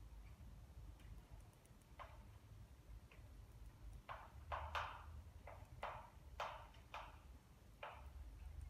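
Chalk writing on a blackboard: a string of short, irregular taps and scrapes, coming thicker in the second half, over a faint steady low hum.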